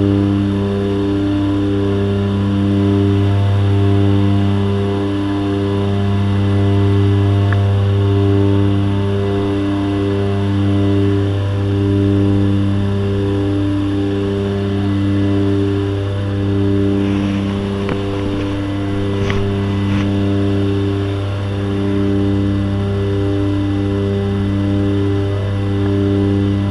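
Propeller aircraft engine drone heard from inside the cabin, a loud steady hum that throbs in a slow regular beat. A few light clicks come about two-thirds of the way in.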